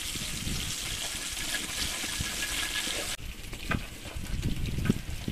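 Dried salted fish sizzling in hot oil in a pan while its vinegar-and-sugar sauce cooks down to a caramel, leaving only oil. The steady sizzle cuts off suddenly about three seconds in, leaving a quieter low rumble with a few faint clicks.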